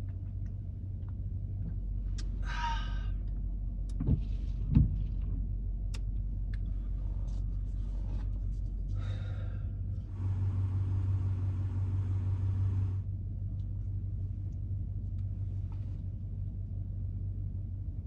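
Pickup truck's engine idling with a steady low rumble. Over it come a few knocks and clinks, the loudest about five seconds in, and a hiss that lasts about three seconds around the middle.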